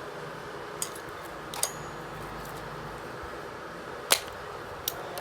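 Four short, sharp clicks and taps of small metal parts being handled during a repair, the loudest about four seconds in, over a steady background hum.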